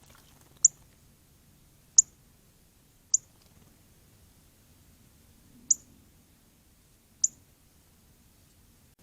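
Northern cardinal giving sharp, high chip calls, five in all, spaced irregularly a second or more apart, each a quick downward-sweeping note.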